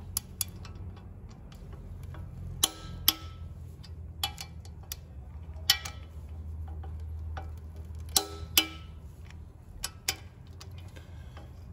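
Sharp metallic clicks and clinks from a torque wrench and socket on the 12-point ARP flywheel bolts of a flexplate. There are about ten, scattered and several in close pairs, over a steady low hum.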